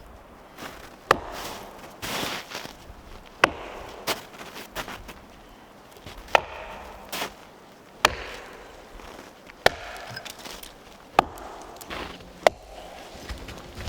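Wood being chopped with an axe: about nine sharp strikes at uneven intervals, roughly one every second or so, with rustling in between.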